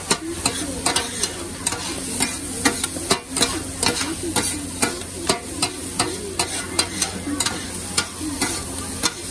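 Fried rice sizzling on a flat griddle while two metal spatulas scrape and clack against the plate as they chop and turn it, about two or three sharp clacks a second over the steady sizzle and a low hum.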